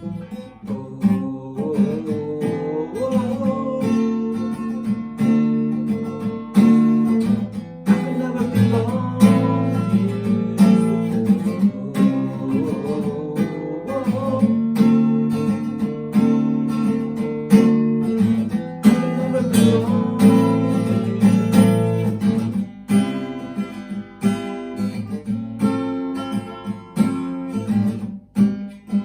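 Instrumental break of a song: acoustic guitars strumming and picking in a steady rhythm, with a melody line above that bends in pitch.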